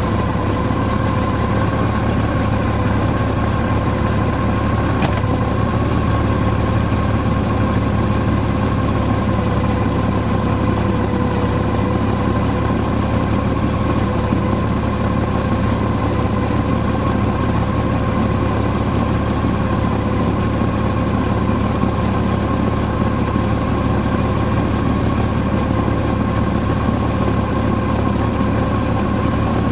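Vehicle engine and road noise while driving, a steady rumble with a constant whine.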